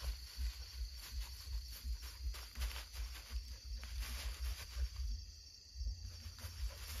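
Footsteps and rustling through dry grass and brush: irregular soft thuds with crackles of stalks. A steady chirring of night insects runs underneath.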